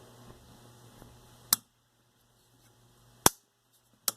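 Three sharp plastic clicks: a night light's plug being pushed into a GFCI receptacle and the receptacle's trip mechanism snapping off. The GFCI is faulty and trips under a light load.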